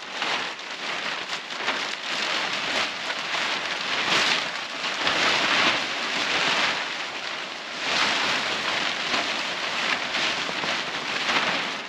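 Large sheet of black polyethylene film rustling and crackling as it is dragged and spread by hand, in uneven swells of louder crinkling.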